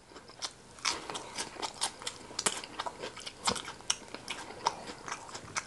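Close-miked chewing of a lettuce wrap: crisp lettuce crunching and wet mouth clicks, irregular and several a second.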